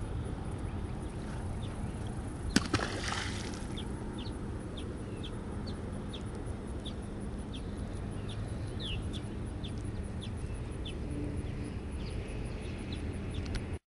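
A single short splash about two and a half seconds in, a largemouth bass released back into the lake, over steady outdoor background with short high chirps repeating about every half second.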